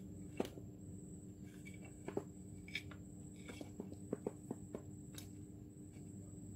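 Light clicks and taps of the Shingu chainsaw's rear handle and fuel-tank housing being pushed and seated onto the saw body: a few single knocks, then a quick run of about six clicks around four seconds in, over a steady faint hum.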